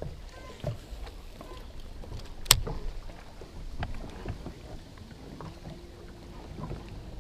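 Low steady rumble on a bass boat with scattered light clicks and knocks from handling a baitcasting rod and reel; one sharp click about two and a half seconds in is the loudest sound. A short steady hum comes in about five and a half seconds in.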